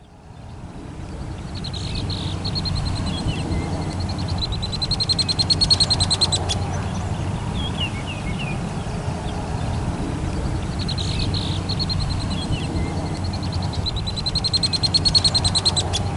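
Outdoor ambience: birds calling over a steady low rumble. A fast, pulsing trill comes in twice, about four seconds in and again about eleven seconds in, and is the loudest sound each time.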